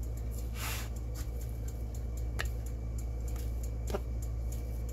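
Metal bench scraper chopping down through soft pretzel dough onto a wooden cutting board: a few light taps spread out about every second and a half, over a steady low hum.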